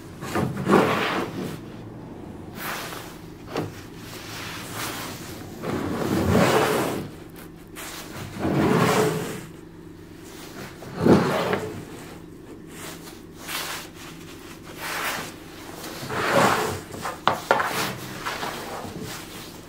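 Wooden strips being slid and pushed together across a wooden workbench: a handful of scraping swells about a second long each, with a few sharp wood-on-wood clacks near the end. A faint steady hum runs underneath.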